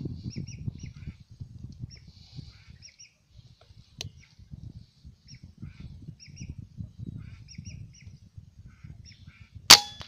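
Lesser whistling ducks giving repeated short, high whistles, then near the end a single sharp air-rifle shot with a brief metallic ring.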